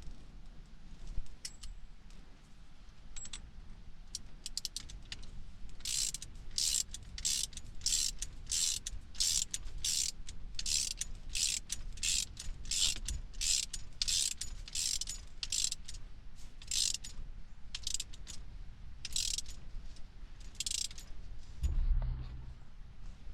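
Hand ratchet wrench being worked back and forth to tighten a fastener on the steering column, each back-stroke a short burst of pawl clicks, about one and a half strokes a second. A dull thump near the end.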